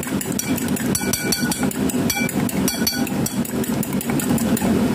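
A fork whisking eggs in a ceramic bowl: rapid, even clicking of the metal tines against the bowl, over a steady low rumble.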